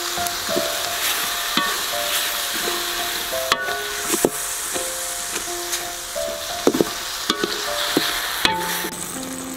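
Pineapple pieces sizzling in a hot metal wok as a wooden spatula stirs and scrapes them, with several sharp knocks of the spatula against the pan. A simple melody of held notes plays underneath.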